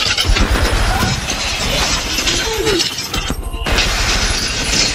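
Action-film soundtrack: a loud, dense mix of crashing and breaking impacts with music underneath, dipping briefly about three and a half seconds in.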